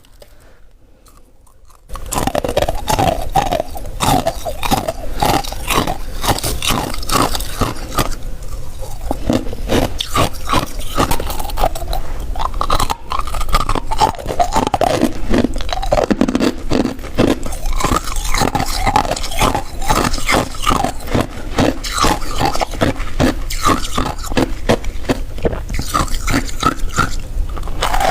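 Close-miked crunching of freezer frost being bitten and chewed: a dense, continuous crackle of ice that starts about two seconds in.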